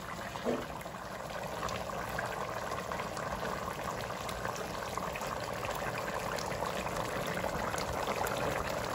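Crab roast masala gravy bubbling steadily in a pan as it simmers and reduces.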